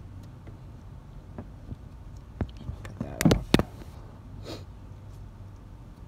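Wires and electrical tape being handled and wrapped: a few sharp clicks and crackles just past the middle, the loudest about three and a half seconds in, then a brief rustle.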